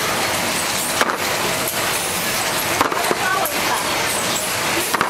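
Automatic battery heat-shrink sleeve wrapping machine running: a dense, steady noise with scattered clicks and clatter.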